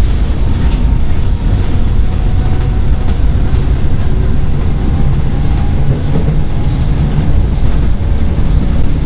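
Seoul Metro 1000 series resistor-control electric train running, heard from inside the carriage: a loud, steady rumble of wheels and traction motors on the rails.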